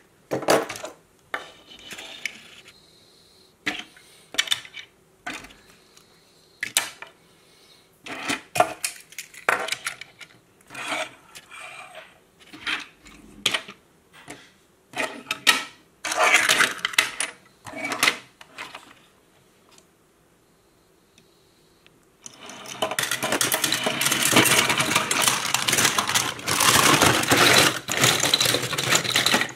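Die-cast and plastic toy cars clicking and knocking as they are picked up and set down one by one. About 22 seconds in this turns into a long stretch of continuous rattling and clattering as a hand rummages through a plastic bin full of toy cars and monster trucks.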